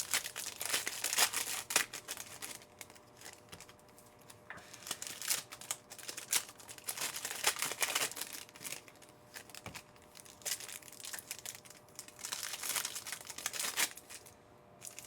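Trading card pack wrappers being torn open and crinkled by hand, in irregular bursts of crackling, while packs of Panini Certified football cards are ripped.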